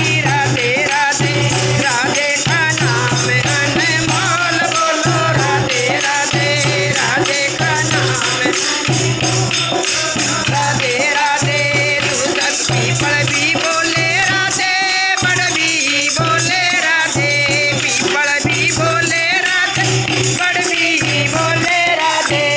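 Music of a Hindi devotional bhajan: shaken jingling percussion keeps the beat under a wavering melodic line, over a low bass that pulses on and off.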